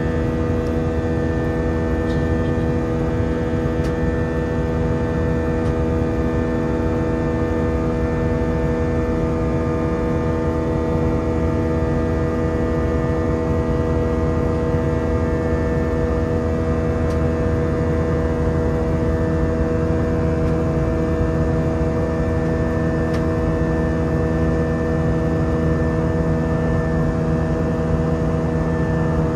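The IAE V2500 turbofan engines of an Airbus A319 in climb thrust, heard from inside the cabin. A steady rumbling roar is overlaid by a chord of several level, unwavering tones, the multi-tone 'engine symphony' of these engines.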